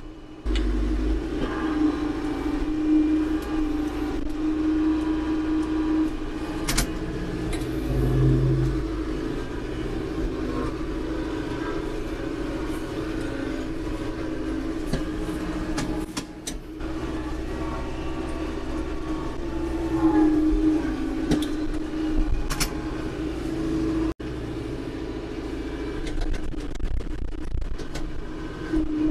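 Diesel engine of a Branson compact tractor running steadily at working revs while it works a loader grapple, with a couple of sharp knocks.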